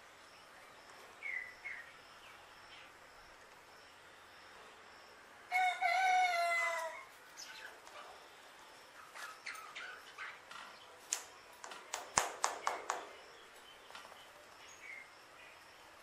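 Common hill myna calling. A short chirp comes about a second in, then a loud drawn-out call about five and a half seconds in that lasts about a second and a half and falls slightly in pitch. A string of short, sharp clicking notes follows in the second half.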